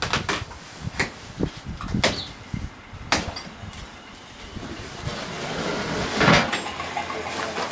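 Boxed sawmill parts and cardboard being handled during unpacking: a series of sharp knocks and clatters, then a longer scraping rustle about six seconds in.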